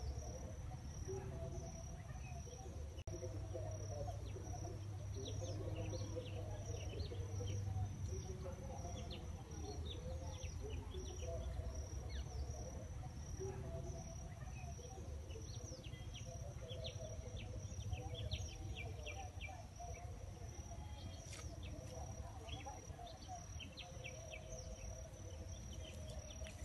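Insects, crickets or cicadas, droning steadily on one high note, with scattered short bird chirps and a low rumble underneath.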